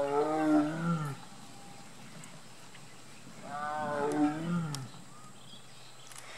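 Bengal tiger calling twice, about three seconds apart: two drawn-out calls, each dropping in pitch as it ends.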